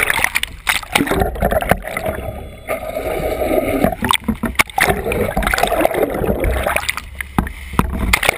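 Muffled water rushing and gurgling with many irregular knocks and a low rumble, picked up through a GoPro's underwater housing on a pole at the side of a sportfishing boat.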